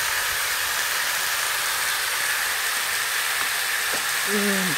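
Lamb flap pieces frying in a wok, a steady sizzle.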